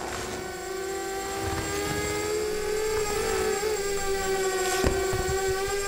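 Small quadcopter drone's propellers whining at a steady pitch, growing louder over the first few seconds, with a brief wobble in pitch around the middle and a single click near the end.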